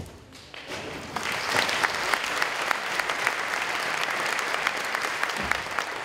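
Audience applauding in a large sports hall, swelling about a second in and holding steady.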